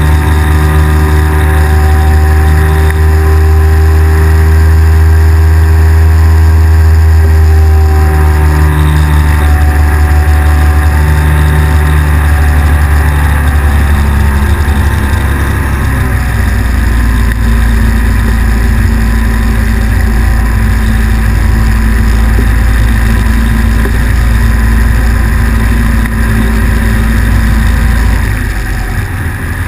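Microlight trike's engine and propeller droning steadily in flight. About halfway through, the engine note drops to a lower pitch and holds there.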